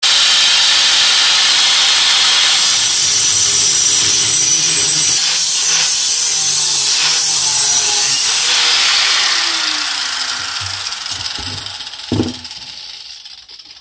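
Angle grinder with a cut-off wheel cutting through a steel radiator-mount frame. It runs loud and steady for about nine seconds, then winds down and fades with a falling pitch. A light knock comes near the end.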